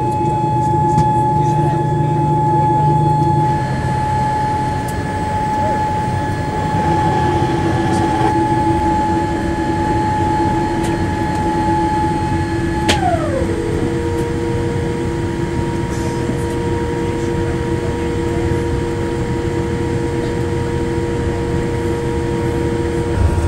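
Boeing 787 cabin on the ground: a steady hum of engines and air systems with a high whine that glides down to a lower pitch about 13 seconds in and holds there.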